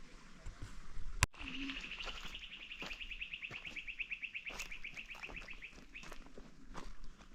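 A sharp click about a second in, then a bird's fast, even trill of about ten notes a second that lasts some four seconds, with scattered light taps around it.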